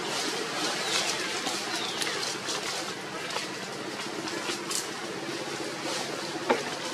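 Outdoor ambience among trees: a steady rushing noise with light crackling rustles, a few faint bird chirps in the first couple of seconds, and one sharp click near the end.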